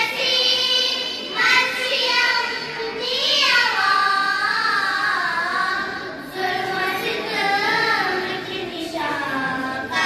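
A group of young girls singing a Kashmiri manqabat (devotional song) together into microphones, in phrases a few seconds long with long held notes that bend in pitch.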